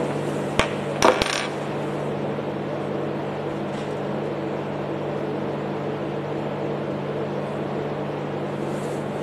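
Steel target plates hanging on chains clank twice in the first second and a half, the second clank ringing briefly, as they swing after rifle hits; then only a steady low hum.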